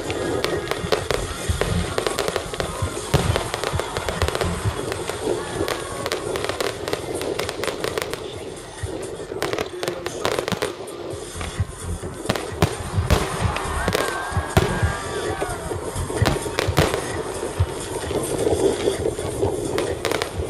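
Aerial fireworks display: shells bursting in a rapid, irregular series of bangs and crackles. There is a lull about halfway through, then a dense run of reports.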